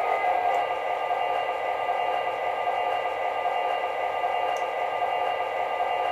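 MTH Premier O-gauge Southern Pacific F-3 model diesel locomotive running, its Proto-Sound 2.0 diesel engine sound playing steadily from the onboard speaker.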